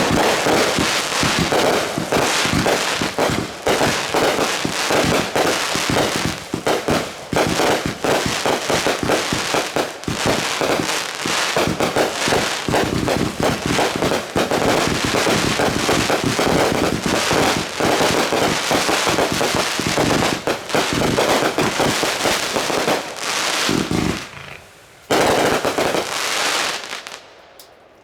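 Consumer fireworks going off in a dense, rapid barrage of bangs and crackles. Near the end the barrage drops away, then comes one last short loud burst before it dies out.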